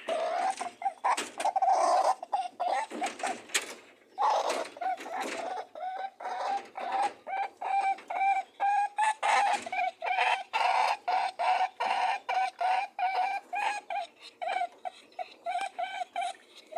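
Rabbits honking during mating: a rapid, rhythmic run of short grunting honks, about three a second, the courtship sound of a buck with a doe. A few louder noisy rushes come in the first six seconds.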